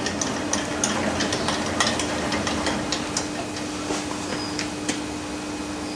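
Hafco Metalmaster lathe carriage being wound along the bed by its handwheel, with irregular light clicks and metallic ticks, over a steady low hum.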